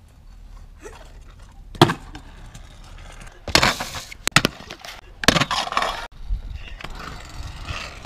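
Kick scooter wheels rolling on the concrete of a skatepark bowl, rising and fading as the rider carves, with sharp clacks of the scooter striking the concrete about two seconds in and again several times between four and five and a half seconds.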